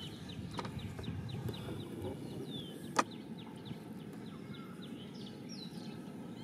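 A bird chirping rapidly, a run of short, high, falling notes about five a second that thins out to a few scattered chirps after the middle, over a steady low wind-and-water rumble. One sharp click about three seconds in.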